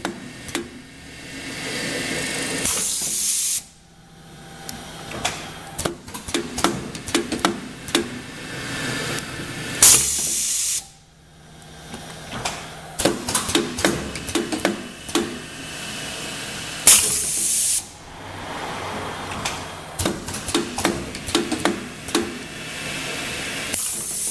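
CRT-50 rotary rubber parts trimming machine running its cycle: many sharp mechanical clicks and clacks, and a loud hiss of air lasting about a second and cutting off sharply, repeated roughly every seven seconds.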